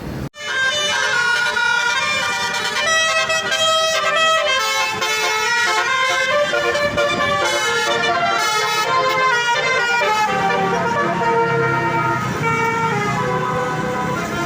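Bus 'telolet' multi-tone air horn playing a melody of held notes, one tone stepping to the next, with a short break just after the start.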